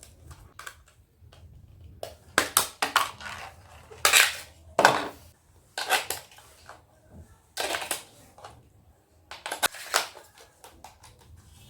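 AA batteries being fitted into a plastic RC transmitter's battery compartment: a series of clicks, rattles and short scrapes of batteries and plastic cover being handled, with a longer scrape about four seconds in.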